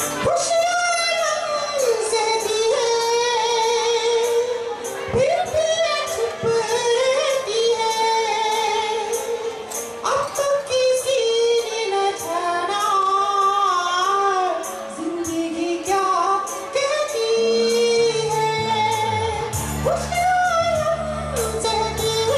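A man singing a song through a handheld microphone over a backing track with a steady beat and bass, holding long, high notes with vibrato.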